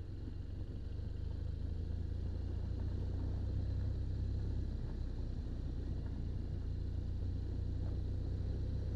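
BMW R1200RT's flat-twin boxer engine running at a steady cruise, heard from a camera on the bike as a steady low rumble.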